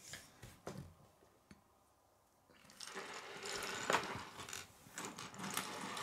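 A few light clicks, then a short hush. From about halfway through, a forearm and hands slide and rub across a wooden tabletop: a rubbing hiss with a few sharp knocks, loudest about two-thirds of the way in.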